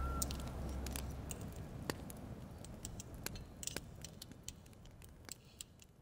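Sparse, faint clicks and ticks over a low rumble, the whole fading out steadily.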